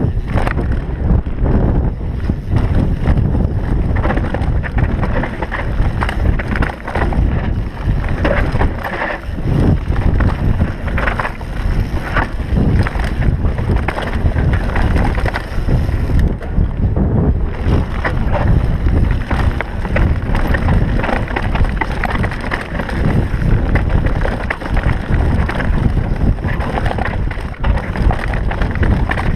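Downhill mountain bike rattling and clattering over a rough, rocky dirt trail at speed, with wind buffeting the camera's microphone throughout.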